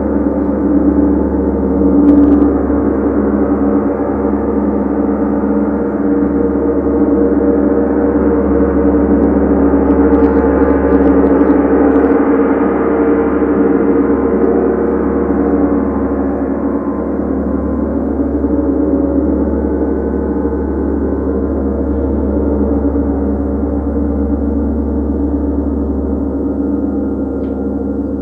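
Large tam-tam gong played with a small ball-headed mallet, sounding as one continuous wash of many overlapping steady tones. It swells in the middle and eases a little towards the end, with no single loud strike standing out.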